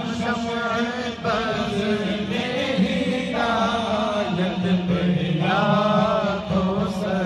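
Islamic devotional chanting in a man's voice: long melodic phrases, each held for a second or more, over a steady low hum.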